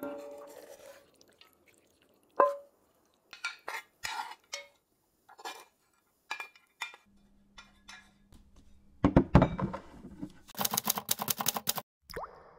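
Wooden spatula and metal spoon scraping and clinking against nonstick pans as stir-fried noodles and chicken are served out: scattered short scrapes and clinks, with one ringing clink about two seconds in and a louder run of scraping and clattering near the end.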